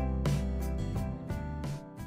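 Outro music with a steady beat and a bass line, starting to fade near the end.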